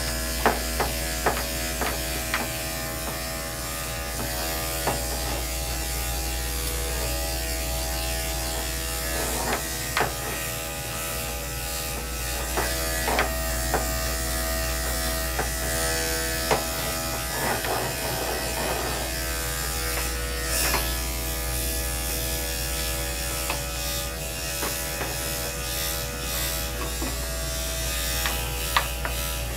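Electric dog clipper fitted with a number one comb guard running steadily as it clips a dog's body coat, with scattered light clicks.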